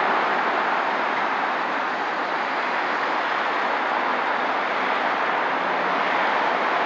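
Steady roar of expressway traffic, with the tyre and engine noise of passing cars, vans and trucks blending into one even hiss that swells slightly and fades.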